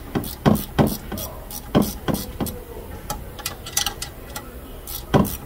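Irregular sharp metal clicks and clinks of a hand wrench being worked on a bolt at a car's rear brake caliper, a dozen or so knocks at uneven intervals over a low steady hum.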